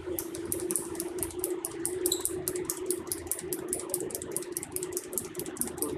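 Micropipette pumped rapidly up and down in a test tube to mix a blood sample into Drabkin's reagent: a fast, even run of light clicks, about five a second, over a steady low hum.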